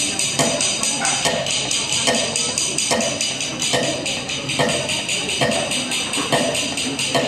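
Repetitive, percussive dance music with a steady tambourine-like jingle on top and a stronger accent returning a little more than once a second.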